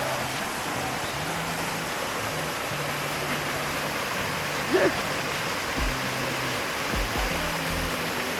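Waterfall rushing steadily, under background music with a low stepping bass line. A brief sharp sound stands out about five seconds in.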